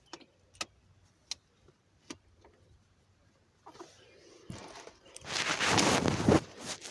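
A few sharp clicks spread out in the first two seconds, then loud rustling and crinkling full of small clicks from about five seconds in.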